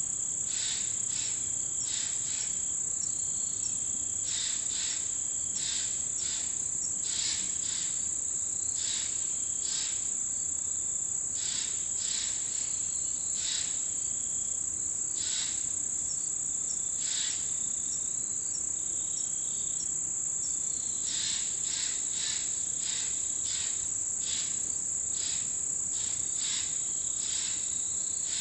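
Chorus of autumn insects: a continuous high, steady trill, with many short irregular chirps from other insects over it.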